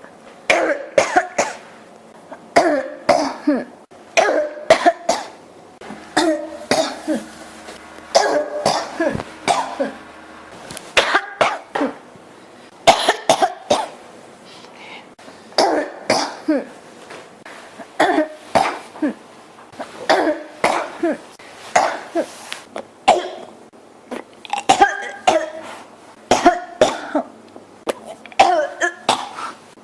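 A person coughing over and over in fits: clusters of short, sharp coughs every second or two with brief pauses between. The coughing comes from a throat that feels scratchy and irritated.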